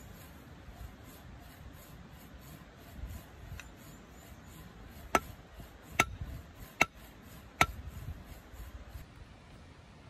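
A hammer knocking short upright log pieces into the soil to edge a garden bed: four sharp knocks a little under a second apart, after a fainter one.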